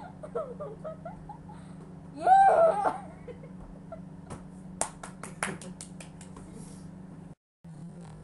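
A person's voice laughing, with a loud burst of laughter about two seconds in, then a quick run of about ten sharp clicks or taps, over a steady low hum.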